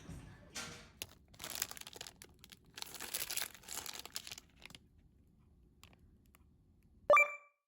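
Thin plastic packaging and an inflatable air pillow crinkling and rustling as they are handled, in irregular bursts for about four seconds. Near the end comes a short, loud, pitched tone.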